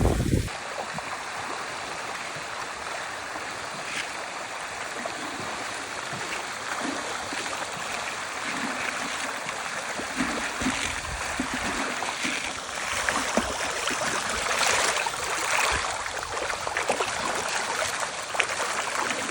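Water flowing and splashing steadily, with small irregular splashes and clicks.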